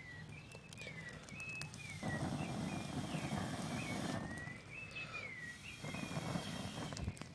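A bird singing short whistled phrases, each sliding down in pitch, repeated over and over. A rushing noise cuts in abruptly about two seconds in and stops about two seconds later, then returns more faintly near the end.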